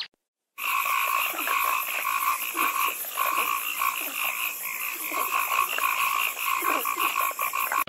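Dense chorus of many small animals calling at once: rapid, overlapping repeated calls over a steady high shrill. It starts about half a second in, after a brief silence, and cuts off at the end.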